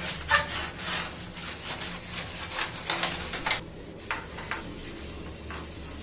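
Scrubbing a soapy plastic window-AC front grille with a scrub pad: quick back-and-forth rubbing strokes that thin out to a few scattered strokes after about three and a half seconds.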